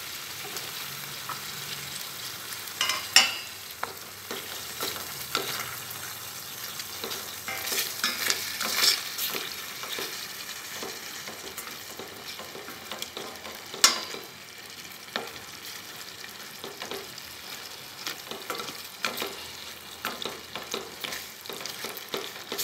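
Sliced pig liver sizzling in hot lard in a stainless steel pot, stirred with wooden chopsticks that tap and scrape against the metal now and then. The sharpest taps come about three seconds in and again near the middle.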